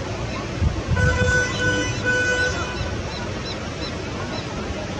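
Steady rush of river water with wind on the microphone, and a short pitched horn-like tone sounding three times, about a second in.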